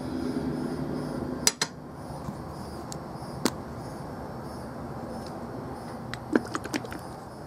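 Small machined steel parts clinking against each other and an aluminium bar as they are handled and set down: two sharp clinks about a second and a half in, another a couple of seconds later, and a quick run of clicks near the end.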